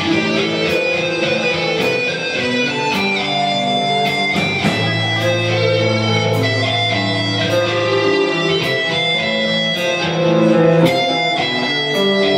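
Live rock band playing: electric guitars and bass guitar over drums, with cymbal strikes on a steady beat. A low note is held for about three seconds in the middle.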